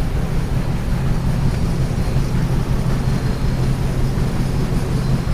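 Large walk-in egg incubator running, its paddle fan turning: a steady, somewhat noisy machine whir with an even low hum underneath.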